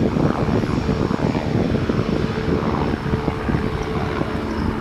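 Jet airliner engines on the runway: loud, steady engine noise with a low, even drone.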